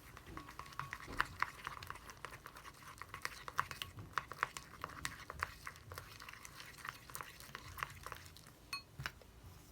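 Mixing tool stirring and scraping a thick mix of glue and instant snow in a bowl: a fast, irregular run of sticky clicks and taps that thins out near the end.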